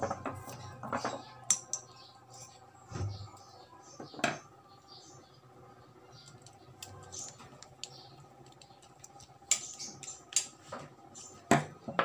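Scattered clicks and light metallic taps as small electrical switches and a screwdriver are handled and crimped spade-terminal wires are fitted to the switch terminals, with a faint steady hum underneath.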